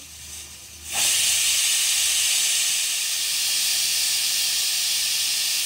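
Stovetop pressure cooker whistling: the weighted steam valve lifts about a second in and lets out a loud, steady hiss of escaping steam, which cuts off suddenly near the end. The whistle is the sign that pressure has built up inside the cooker.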